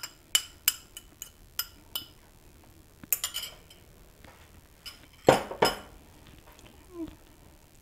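A metal fork clinking and scraping against a small ceramic bowl as beaten eggs are scraped out of it, a string of sharp clinks. A little past halfway there are two louder knocks.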